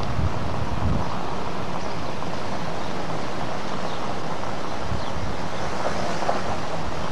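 Steady wind rush on the microphone and road noise from a moving car.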